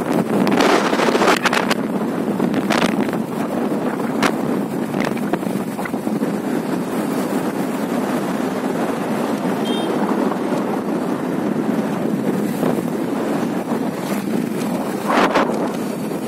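Wind buffeting the microphone of a phone carried on a moving bike: a steady rushing noise with a few sharper gusts, the loudest near the end.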